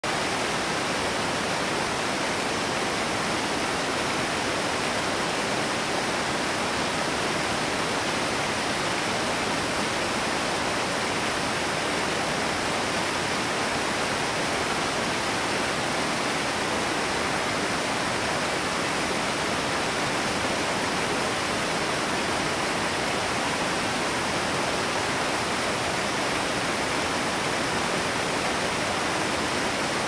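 Waterfall rushing steadily: an even, unbroken wash of falling water.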